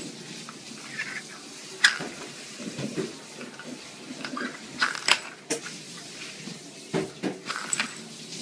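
Small round plastic lids clacking and sliding on a wooden floor as a kitten bats at them, with a few sharp, scattered clacks; the loudest come about two seconds in and about five seconds in.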